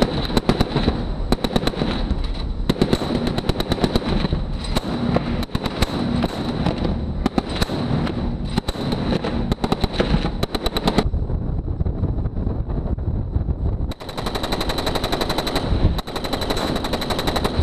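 Mark 38 25 mm naval gun, an M242 Bushmaster chain gun, firing repeated bursts of rapid single shots. After about eleven seconds the firing stops for roughly three seconds, leaving only a low rumble. Then it fires again in dense bursts.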